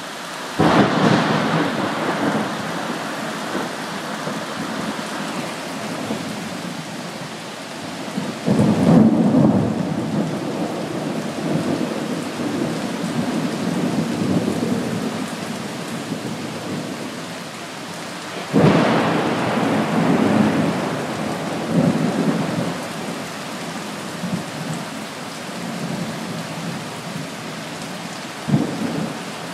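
Four claps of thunder over steady rainfall, roughly every nine to ten seconds. Each starts suddenly and rumbles on for several seconds as it fades.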